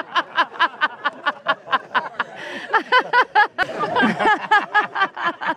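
A person laughing hard, a long run of short pitched laughs at several a second.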